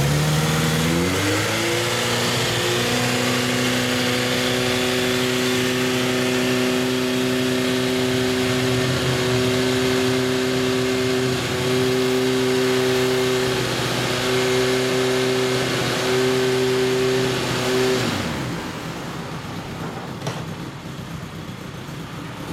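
Kawasaki Zephyr 1100's air-cooled inline-four running through an M-TEC Chukyo short-pipe exhaust. It revs up over the first couple of seconds and holds steady at raised revs with a few brief dips, then at about eighteen seconds the revs drop and it settles to a quieter idle.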